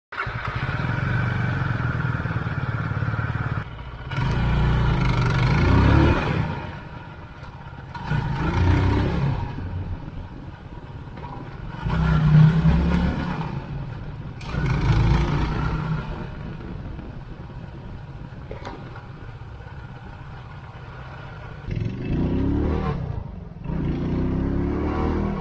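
Benelli Leoncino 250 single-cylinder motorcycle engine being ridden, revving up and easing off about six times as it accelerates and shifts.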